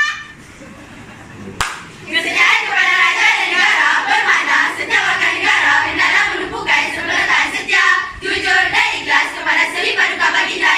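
A group of girls singing together in unison with hand claps, starting suddenly about a second and a half in.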